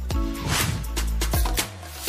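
Electronic background music with a heavy bass beat and a rising swell of hiss about midway.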